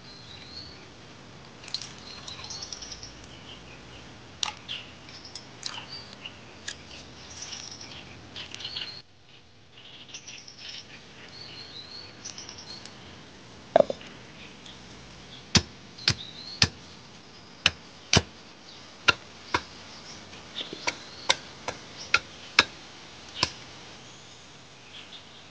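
Small birds chirping in short high calls over a soft background hiss. From about halfway through comes a string of sharp clicks, roughly one a second, the loudest sounds heard.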